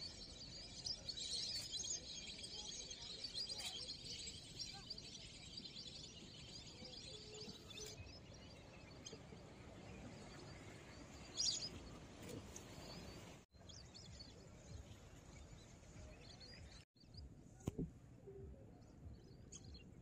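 A flock of birds chirping and calling, many voices at once at first, thinning out after about six seconds to a few scattered calls.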